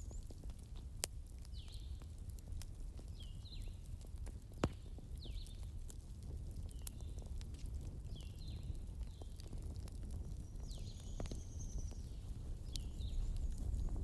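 Wood fire crackling, with scattered sharp pops, two of them louder, about a second in and near 4.6 s, over a steady low rumble. A bird repeats a short call roughly every one and a half to two seconds.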